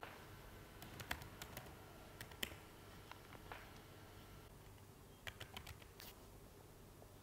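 Faint key clicks from typing on the One Netbook A1 mini laptop's compact keyboard: scattered presses, then a quick run of about five keystrokes around five seconds in.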